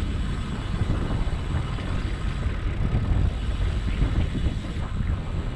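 Wind buffeting the microphone of a camera on a moving bicycle: a steady low rumble that swells and dips with the gusts.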